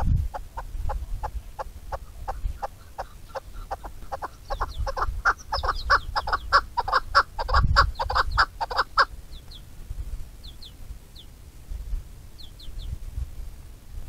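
A partridge giving its repeated clucking call: a long run of short notes, about three a second, growing louder and busier partway through, then stopping abruptly about nine seconds in. A few faint high chirps from small birds follow.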